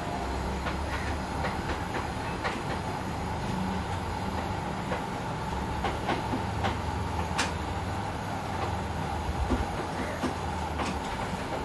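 Handheld butane blowtorch burning steadily, its flame hissing as it heats a copper pipe joint on a fridge strainer for brazing. A few faint clicks come and go.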